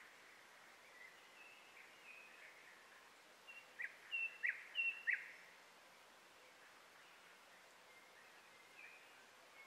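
Small birds chirping outdoors: faint short chirps throughout, and a louder run of four or five sharp down-slurred notes about four to five seconds in.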